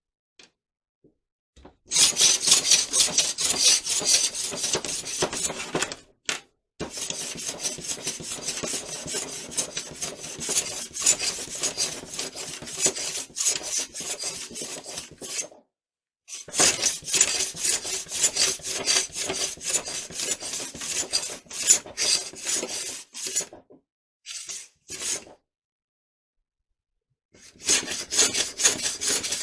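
Hand sanding: rapid back-and-forth rubbing strokes of abrasive on the workpiece, in several long spells broken by short pauses and one longer gap near the end.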